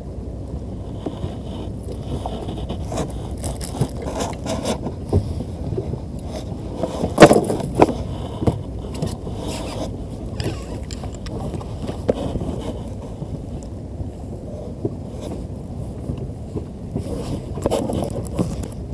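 Steady low rumble of a small fishing boat, with scattered knocks and scrapes of gear handled aboard. The loudest knock comes about seven seconds in.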